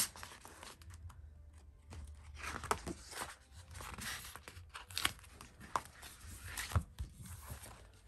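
A paper sheet of planner stickers being handled and stickers peeled from their backing: a series of short rustles, peeling sounds and crinkles, with a few sharp clicks.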